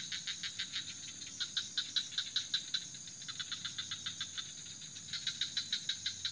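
Night insects, crickets: a steady high trill with a rapid pulsing chirp over it, about six pulses a second, rising and falling in bouts.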